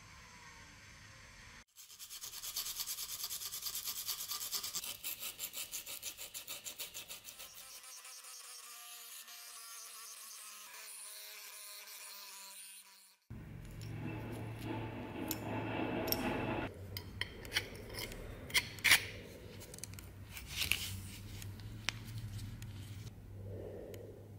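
Handheld rotary tool grinding a small brass knife guard, a dense rasping buzz whose pitch sinks slowly as it runs. Later, metal parts clink and scrape as they are handled, with a few sharp clicks.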